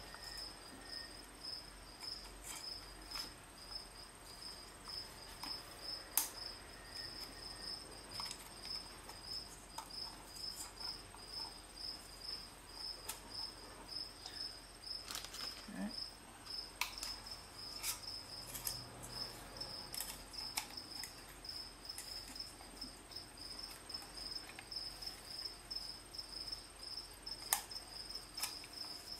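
A cricket chirping steadily at an even pace of about three chirps a second, with a faint steady high tone behind it. A few small clicks come from hands handling the plastic oil filter housing and its rubber ring gaskets.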